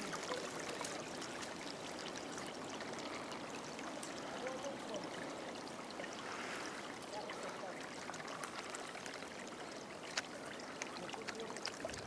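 Small stream trickling steadily along its narrow channel, with a brief click about ten seconds in.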